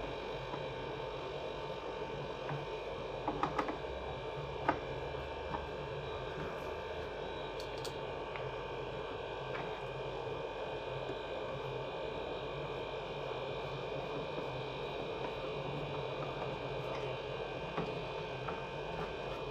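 Steady electrical hum, with a few light clicks as screws are turned in by hand with a screwdriver.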